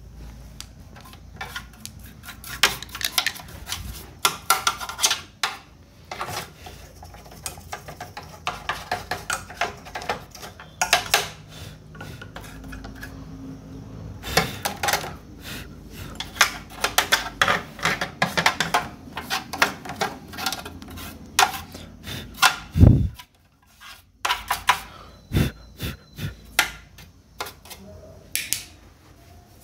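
Irregular clicks, clinks and rattles of metal and plastic as the parts of an opened Luminous inverter are handled: its sheet-metal casing, internal parts and blue plastic front cover. A single heavy thump comes a little over twenty seconds in.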